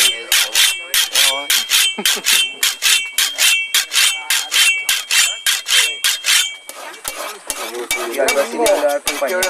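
Rhythmic rasping strokes, about three or four a second, each with a steady metallic ring, like a file being drawn across a steel blade. About seven seconds in the ring drops out and the strokes become duller.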